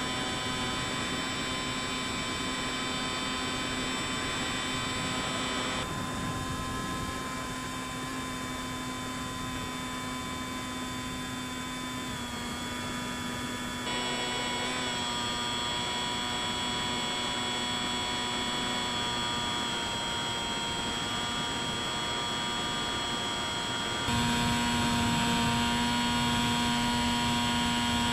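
Bixler 3 RC plane's electric motor and propeller, a steady whine over wind noise in flight. The pitch and level step abruptly with throttle changes a few times, and the sound gets louder near the end.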